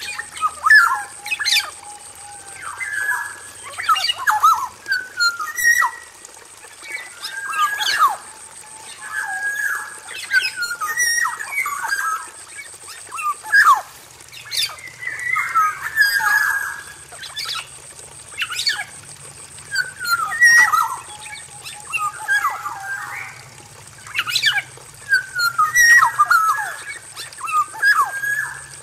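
Male black-naped oriole singing a varied song: phrases of fluty whistles mixed with harsher nasal notes, repeated about every two seconds.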